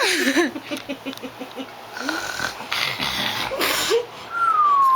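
People snoring: a rapid fluttering snore in the first second, then breathy snores, and a long falling whistle near the end.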